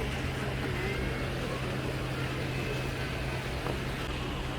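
A steady low engine hum under constant outdoor background noise, with a few faint high chirps.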